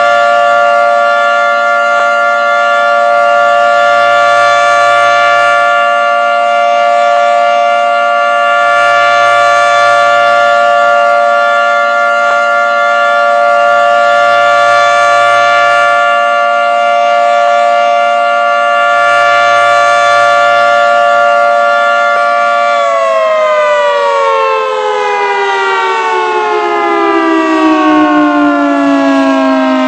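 Federal Signal Thunderbolt 3T22 outdoor warning siren sounding a loud steady tone, then winding down about 23 seconds in, its pitch falling steadily.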